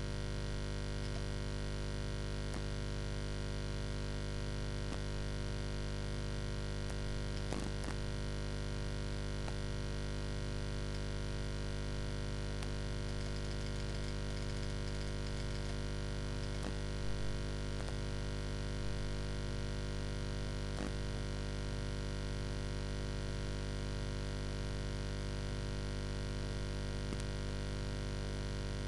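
Steady electrical hum with many overtones, and a few faint clicks.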